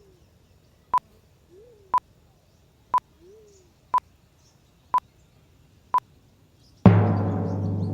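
Short electronic beeps, one every second, seven in all. About seven seconds in comes a loud drum boom like a timpani hit, which rings on. Three faint low hoots, each rising then falling, sound between the first beeps.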